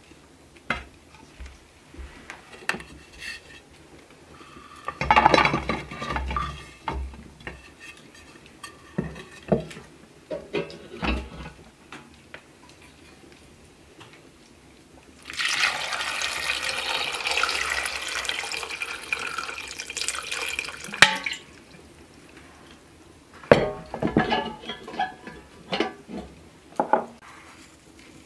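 Water poured from a copper kettle into a metal pail of dried apricots: a steady pouring for about six seconds in the middle that stops abruptly. Around it are knocks and a clatter as the apricots and the pail are handled.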